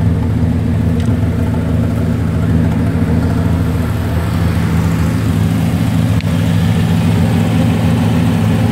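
Triumph TR6's 2.5-litre straight-six engine idling steadily.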